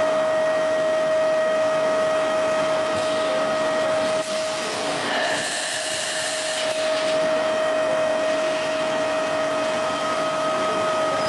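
Automatic ice lolly production machine running: a steady whine over a constant mechanical hiss, with a brief louder hiss about five seconds in.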